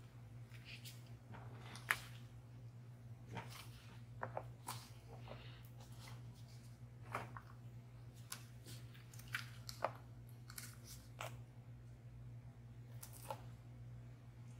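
Disposable plastic gloves crinkling as a silicone loaf mold is peeled away from a block of set pine tar soap: scattered soft rustles, creaks and small taps, with one sharp tap about two seconds in. A steady low hum runs underneath.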